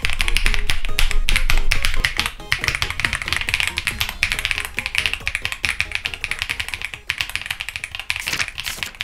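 Fast typing on a mechanical keyboard: a quick, continuous run of key clacks, heard over background music.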